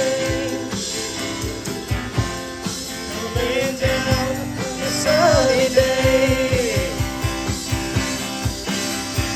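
Rock band playing an instrumental passage: a lead guitar line with held, bending notes over a steady drum beat, bass and rhythm chords.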